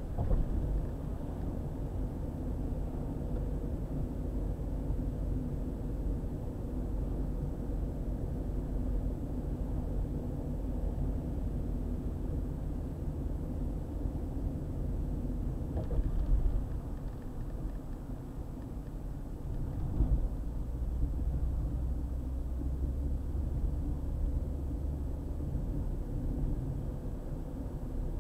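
Car driving on a highway: steady low rumble of tyres and engine, with two short knocks, about sixteen and twenty seconds in.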